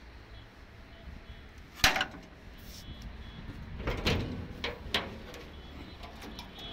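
Clunks and knocks of the Mahindra Bolero's steel bonnet being unlatched and lifted open, three or four in quick succession between about four and five seconds in, after a single sharp knock about two seconds in.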